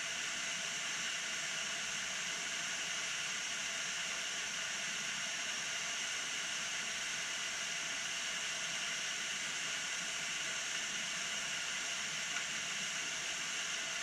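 Waterfall, a tall narrow fall of water dropping onto rocks, making a steady, even rush.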